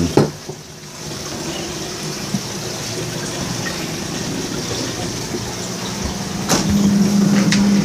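Steady rush of aquarium water circulating and splashing from the tank filtration. About six and a half seconds in there is a click, and a steady low hum follows to the end.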